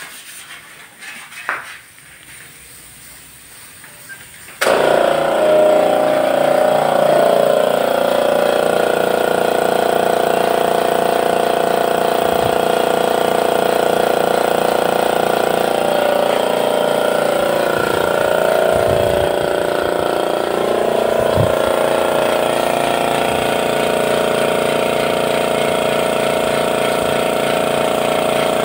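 Air compressor motor running steadily and loudly, supplying a paint spray gun; it starts abruptly about four and a half seconds in, after a few faint clicks.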